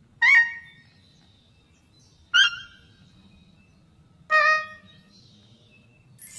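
Three short 'boop' calls voicing a dragon sock puppet, about two seconds apart. Each starts with a quick slide down onto its note; the second is the highest and the third the lowest.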